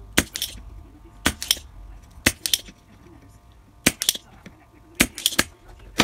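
Spring-loaded desoldering pump snapping as it sucks solder off the joints of a failed diode on a monitor power supply board. Sharp clicks come mostly in pairs or threes, about once a second.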